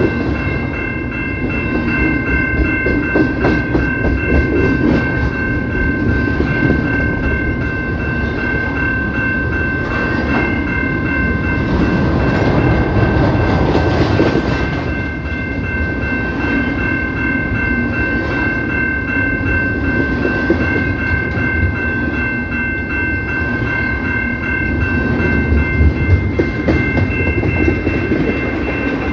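A CPKC train rolling past, its wheels clattering under a heavy, steady rumble, with a high-pitched steady tone held over it.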